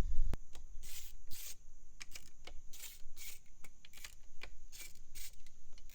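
Irregular short scrapes, rustles and clicks of hands and tools working the coil packs and plug wires on a Suzuki four-stroke outboard's cylinder head, about a dozen in a few seconds.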